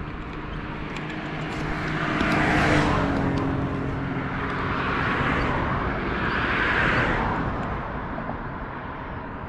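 Cars passing on the adjacent roadway, rising and fading three times, about two and a half, five and seven seconds in; an engine hum drops in pitch as the first car goes by. A steady low rumble sits underneath.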